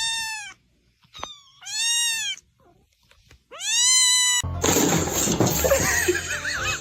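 A cat meowing: three high, drawn-out meows that rise and fall in pitch, with a short chirp between the first two. Music comes in about two-thirds of the way through.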